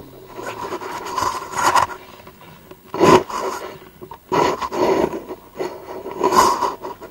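A stuck off-road vehicle's engine revving in about four surges while its wheels spin and scrape without grip, digging the vehicle in deeper. The loudest surge comes about three seconds in.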